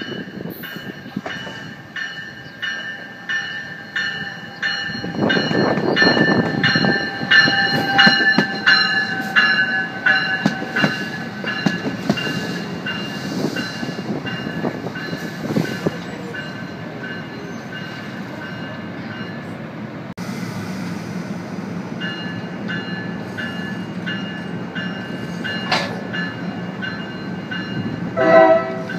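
NJ Transit Multilevel double-deck commuter train arriving and passing close by, with the rumble of wheels and cars. A bell rings about twice a second through the first half, and a horn sounds briefly near the end.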